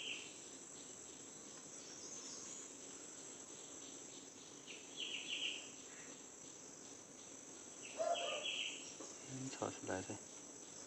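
Steady high-pitched chorus of insects, such as crickets, with short bursts of rapid chirping three times.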